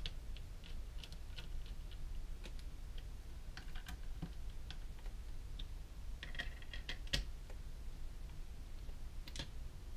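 Scattered small clicks and taps of screws and a screwdriver on a metal airsoft gearbox shell as the shell screws are being fitted, with one sharper click about seven seconds in.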